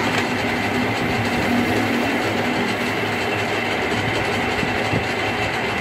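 Metal lathe running steadily, its chuck spinning a grooved steel workpiece: an even mechanical hum and clatter.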